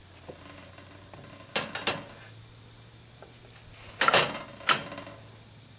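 Wooden spatula scraping and knocking against a metal pan of boiled chicken pieces as they are broken up: a few short sharp scrapes, a pair about a second and a half in and another group about four seconds in.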